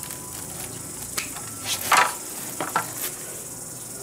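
Thin plastic bag crinkling and rustling as hands move pieces of honeycomb inside it, in a few short sharp crackles, the loudest about halfway through.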